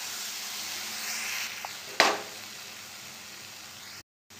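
Onion-tomato masala sizzling and frying in a non-stick pan as it is stirred with a wooden spatula, with one sharp knock about two seconds in. The sound cuts out completely for a moment near the end.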